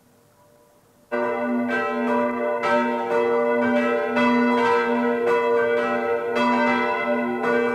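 Church bell swinging and ringing in a timber belfry, starting about a second in: repeated strokes roughly once a second, each leaving a long humming tone between them.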